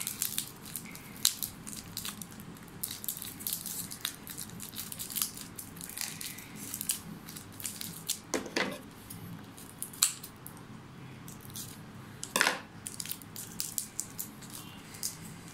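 A plastic pump bottle of body lotion and its plastic wrapping being handled: scattered clicks and crinkles of plastic, with two louder rustles about eight and twelve seconds in.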